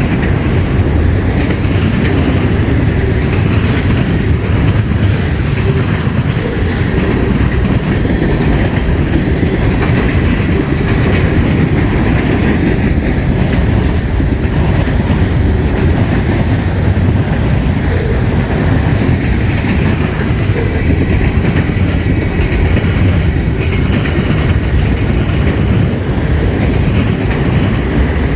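CN freight train cars rolling past on the rails: a steady, loud rumble of steel wheels on track, unbroken throughout.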